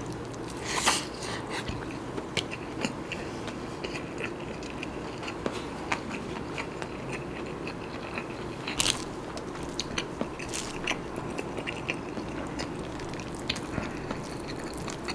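Close-miked chewing of a hand-fed mouthful of nasi kandar rice and curry: wet mouth sounds with scattered sharp clicks, a few of them louder.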